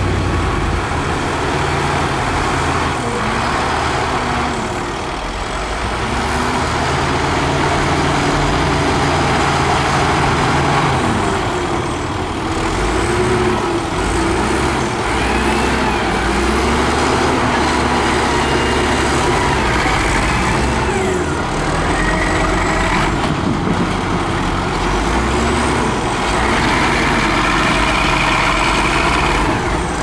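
Heavy diesel construction machinery running continuously, with the engines revving up and falling back again and again under load.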